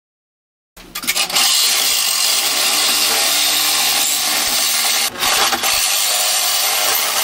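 Reciprocating saw (Sawzall) cutting through overlapped sheet-metal body panels. It starts about a second in after a moment of silence and then runs steadily, with two brief dips near the middle.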